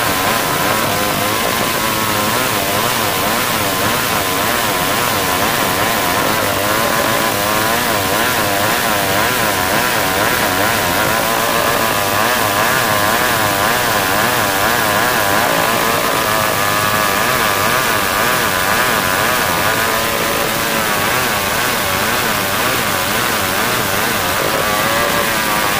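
Old two-stroke chainsaw ripping lengthwise through a hard marsawa batu timber beam, the engine running steadily under load, its pitch wavering slightly up and down as the chain bites.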